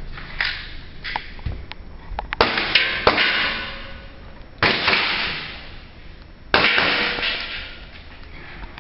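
Gas airsoft pistols firing: scattered sharp clicks and cracks, with three louder bangs about two seconds apart that each ring out for a second or more.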